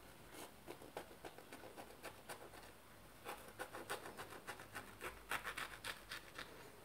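Faint, irregular crackling and rustling as hands pick up and press freshly fried fricassé rolls on a parchment-paper-lined tray: the crisp crust and the baking paper crackle under the fingers, more densely in the second half.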